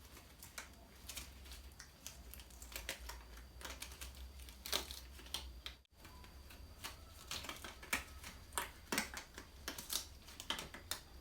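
Irregular light clicks and taps from small objects being handled, over a low steady hum. The sound cuts out completely for a moment about six seconds in.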